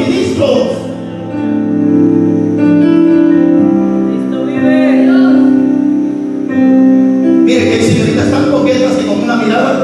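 Worship music: an electronic keyboard holding sustained chords, with a voice singing over it.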